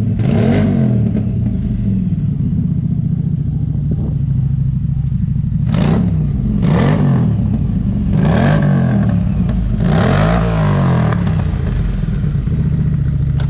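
CF Moto 800 EX side-by-side's V-twin engine, breathing through a custom exhaust with a carbon-fibre muffler, idling and then given a run of quick throttle blips, about four in the second half, the last one held longer.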